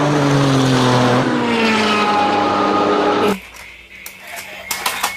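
Engine of a Volkswagen T1 bus driving at speed: a steady engine note that dips in pitch, then climbs again before cutting off abruptly about three seconds in. Faint clicks of a plastic toy being handled follow.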